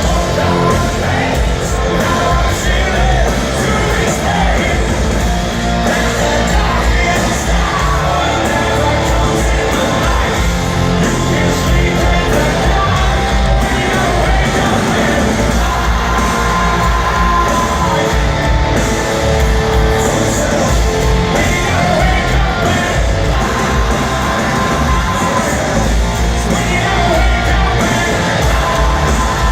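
Live hard rock band playing loud in a concert hall: distorted electric guitars, bass and drums under a sung lead vocal.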